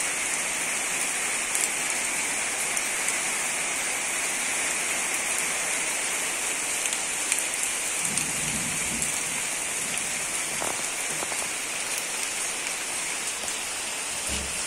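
Heavy monsoon rain pouring steadily: a constant, even hiss of rainfall.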